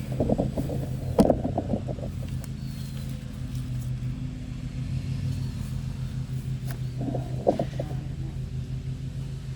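An engine running steadily, giving a low, evenly pulsing hum.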